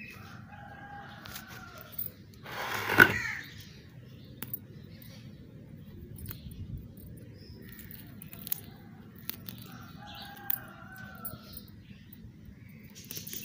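Hands pulling moss rose (portulaca) plants from a terracotta pot: scattered small clicks of stems and leaves being handled, with one loud rustling thump about three seconds in. A bird calls twice in the background, each call about a second long, near the start and again about ten seconds in.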